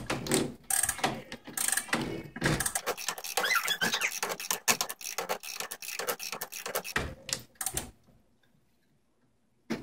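Rapid, uneven ratcheting clicks as a clock's spring is wound by hand with a 3D-printed ratchet wrench and key. The clicking stops about eight seconds in.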